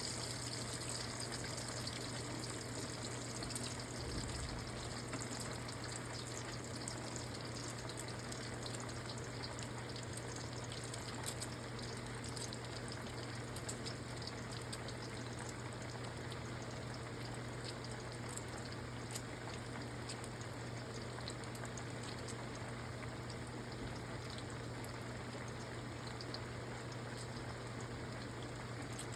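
Food frying in hot oil: a steady sizzle dotted with many small pops, over a low steady hum.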